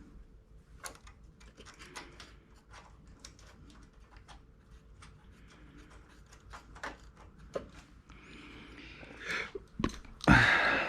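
Light clicks and taps of tools and small parts being handled while an ignition coil is fitted to a small engine, with a rustle near the end and then one loud clunk.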